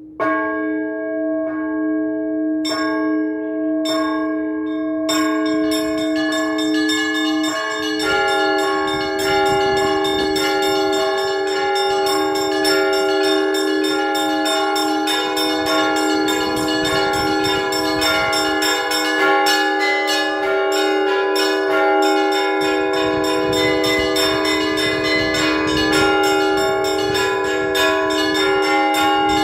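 Russian Orthodox church bells rung by a bell ringer in the belfry, calling the faithful to prayer. A few separate strikes sound over a steady low bell tone, then from about five seconds in many bells ring together in a dense, continuous peal.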